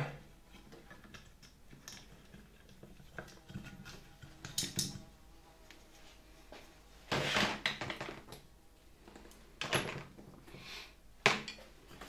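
Scattered clicks, knocks and rustles of the plastic and metal parts of an old Hoover Dustette hand vacuum being handled on a workbench as it is taken apart. A louder scraping clatter comes about seven seconds in, and a sharp click near the end.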